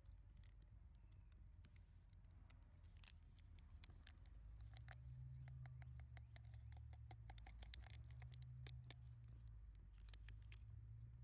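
Instant coffee granules pattering from a packet into an empty stainless steel mug, heard as a run of faint small ticks that thickens about halfway through, over a low rumble.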